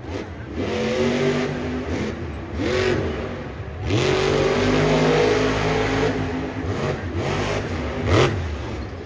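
Monster truck's supercharged V8 engine revving in repeated surges, rising and falling in pitch, with the sharpest burst about eight seconds in.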